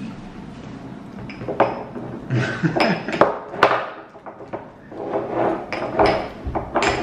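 A fork clinking and scraping against a dish as someone takes bites of pasta, several sharp clinks starting about a second in, with chewing sounds between them.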